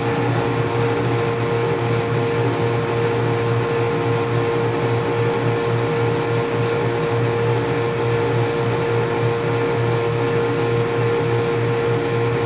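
South Bend 10K lathe running steadily under power, its motor and drive giving a constant hum with a steady higher tone above it.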